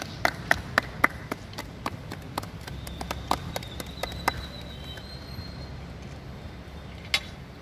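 A few people clapping their hands in a steady rhythm, about four claps a second, loudest at first and stopping about four seconds in, with one last clap near the end.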